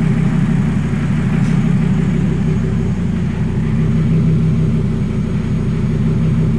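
Volvo T5 turbocharged five-cylinder engine idling steadily at about 730 rpm, warmed up, running on a newly fitted MaxxECU engine management.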